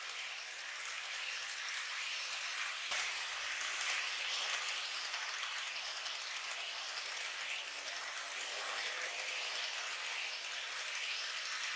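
N-gauge model of a 113 series train in Yokosuka livery running along the track: a steady, hissing rattle of its wheels on the rails.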